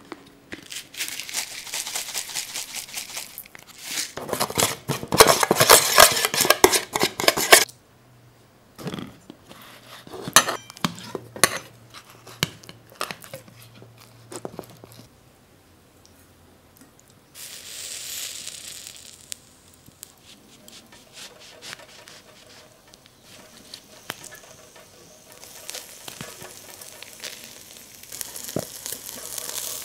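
Metal spoon stirring an oily garlic-and-seasoning sauce in a small stainless steel bowl, a fast run of scraping clinks that is loudest for a few seconds early on. After it come scattered clicks of metal tongs against the bowl as slices of raw beef tongue are turned in the sauce.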